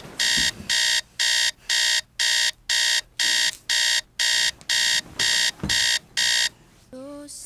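Electronic alarm beeping about twice a second, each beep a high trilling tone, stopping about six and a half seconds in. Music with a pitched melody starts just before the end.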